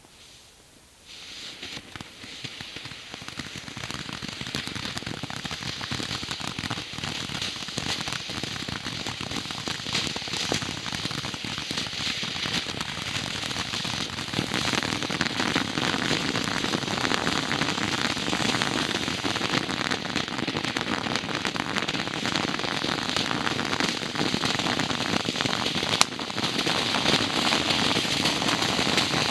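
M&M consumer firework fountain burning: a dense, steady hiss of crackling sparks that starts about a second in and builds over the first few seconds. One sharp pop stands out near the end.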